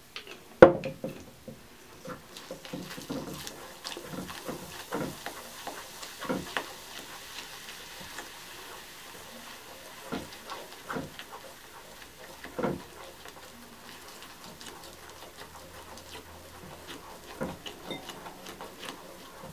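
Plastic knife stirring wet bentonite clay and apple cider vinegar in a glass bowl: a run of small irregular clicks and scrapes of plastic against glass. A sharp knock about half a second in.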